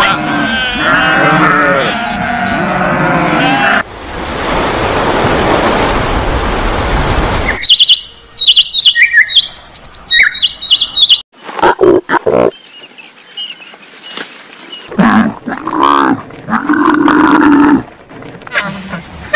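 A run of different animal calls, one clip after another. It starts with pitched calls, then a noisy stretch, high bird chirps from about eight seconds in, a few sharp clicks, and more pitched calls near the end.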